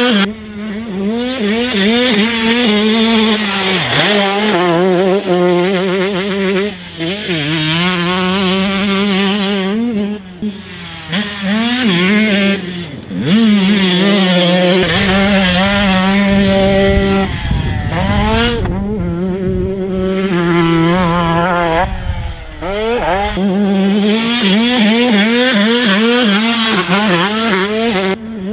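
2022 Husqvarna TC125's 125 cc single-cylinder two-stroke engine revving hard around a motocross track at full throttle, its pitch climbing through each gear and dropping at the shifts and off the throttle, over and over. A low rumble sits underneath for several seconds in the middle.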